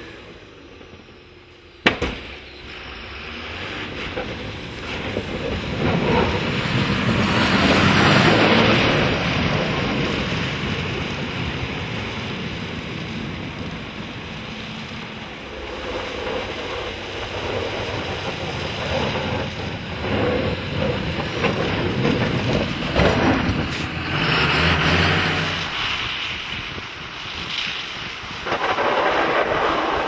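John Deere 6530 tractor's diesel engine running as the tractor drives past pushing a front-mounted snow plough blade, with the rushing noise of snow being shoved aside swelling and fading as it passes. A single sharp knock comes about two seconds in.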